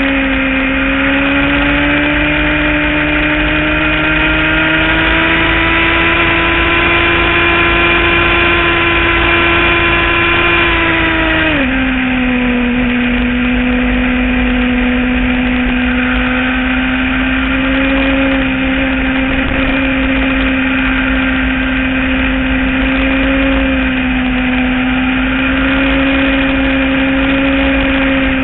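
Motorcycle engine running under steady throttle while riding, its pitch climbing slowly for about eleven seconds, then dropping suddenly and holding steady at the lower pitch for the rest of the ride. Wind rumble on the microphone runs underneath.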